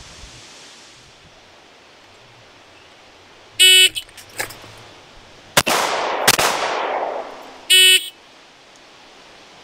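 A shot timer beeps once, then about two seconds later a CZ 75 9mm pistol fires two shots less than a second apart, one-handed, each shot ringing out briefly. A second, identical timer beep sounds about four seconds after the first, at the end of the 4-second time limit.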